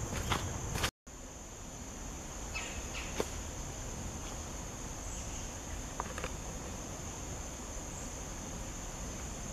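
Footsteps on a forest trail for about a second, then, after a brief cut, a steady high-pitched insect chorus with a few faint ticks.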